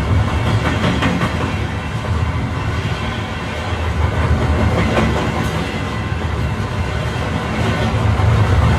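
Passenger train running along the track, heard from inside the carriage: a steady low rumble with a few faint clicks of the wheels over the rails.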